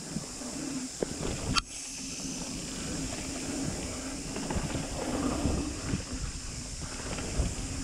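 Mountain bike rolling fast down a dirt singletrack: knobbly tyres rumbling over the ground, with wind noise on the bike-mounted microphone. A low buzz comes and goes, and a sharp knock sounds about one and a half seconds in.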